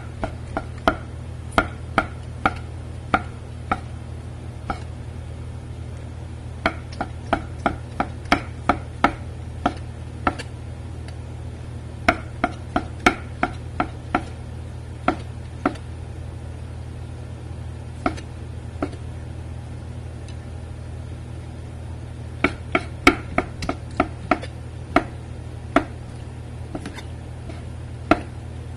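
A cleaver slicing shiitake mushrooms, knocking sharply on the board in runs of quick chops, about two or three a second, with short pauses between runs. A steady low hum lies under it.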